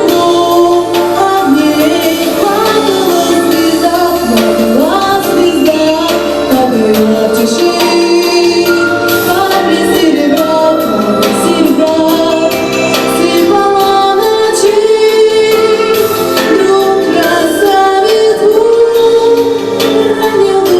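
Female voice singing a song over instrumental accompaniment, holding long notes.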